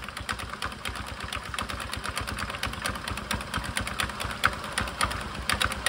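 Suzuki Access 125 single-cylinder four-stroke engine running with the CVT cover off, over a rapid, irregular clicking and clattering from the spinning drive belt and pulleys. The sound is the sign of a worn-out drive belt with broken teeth and cracks, one broken tooth jammed in the pulley so that the belt slips.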